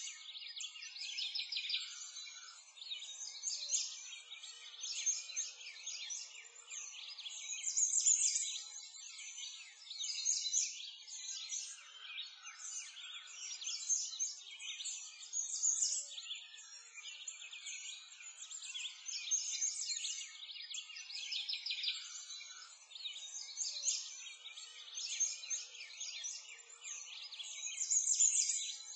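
A continuous chorus of birds chirping, many quick high calls overlapping, swelling and fading every second or two.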